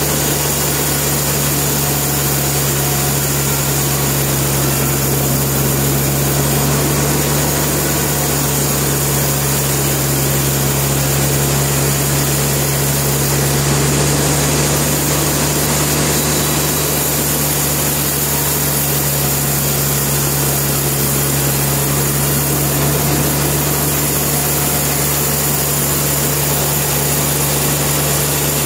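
Sawmill machinery running steadily: an even, unchanging drone with a strong low hum.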